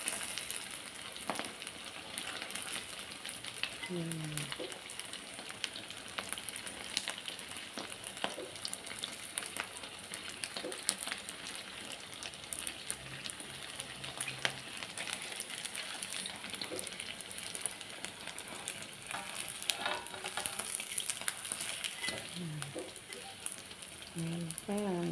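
Pieces of ulen (pounded glutinous rice cake) deep-frying in hot oil in a wok: a steady sizzle with many small crackles. A metal spoon now and then stirs and prods the pieces in the oil.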